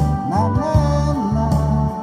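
Amplified busking music: a heavy, steady bass line under a sustained melody whose notes slide up into pitch.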